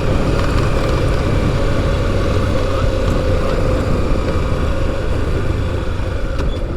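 Motorcycle engine running at a steady speed while the bike is ridden along a dirt road.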